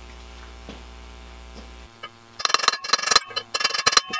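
Steady low electrical hum. About halfway through, a quick run of light metallic clinks and rattles with short ringing, as small metal parts are picked up and handled on the bench.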